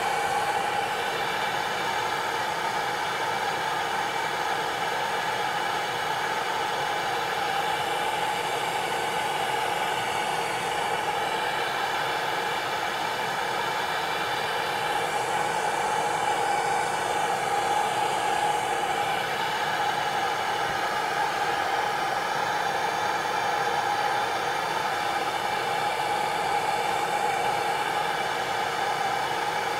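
Steady hissing roar of a handheld gas torch flame playing on a copper aeolipile, mixed with steam jetting from the aeolipile's nozzles as it drives the RC helicopter rotors round.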